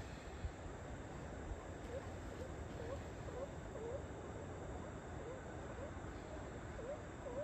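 A steady background rush, with a run of short chirping calls that start about two seconds in. Each call dips and then rises in pitch, and they repeat about twice a second.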